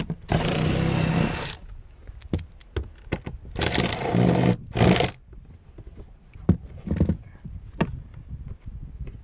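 Power drill running in three bursts, the first two about a second long and the third short, backing out the bolts that hold a boat seat, with small clicks and knocks of handling between the bursts.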